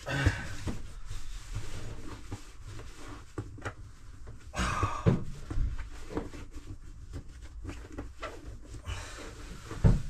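Fabric rustling and bumping as a sleeping bag is crammed by hand into its stuff sack, with scattered knocks and a few straining breaths.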